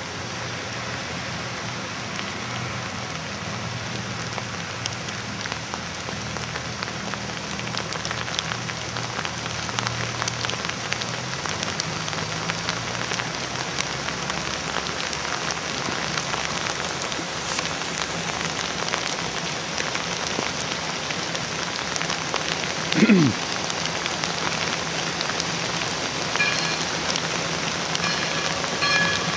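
Steady rain falling, with a brief sound that drops sharply in pitch about three-quarters of the way through.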